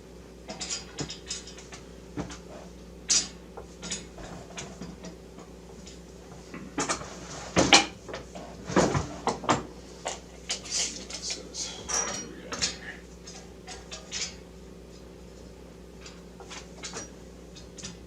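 Metal frame rails and fittings being handled and adjusted: scattered light clicks, clinks and knocks, with a busier, louder run of knocks in the middle.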